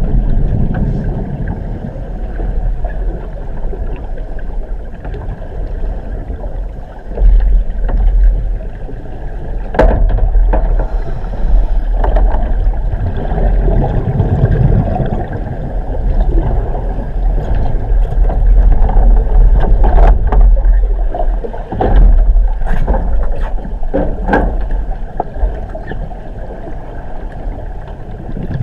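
Sinking-ship sound effect: a deep, continuous rumble with a churning wash of water noise over it, swelling and ebbing. It is broken by scattered sharp knocks, several close together in the second half.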